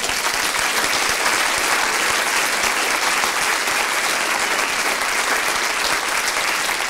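A room full of people applauding steadily.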